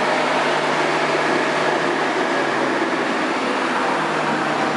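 Brick-making machinery running: electric motors and moving parts make a steady, dense mechanical din with a low hum underneath.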